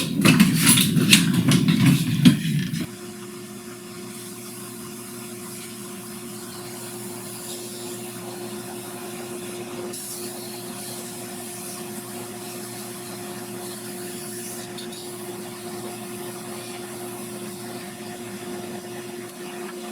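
Oscillating spindle sander in use. For about the first three seconds there is loud rough noise with a few knocks. Then the motor hums steadily, and near the end its pitch falls as it begins to spin down.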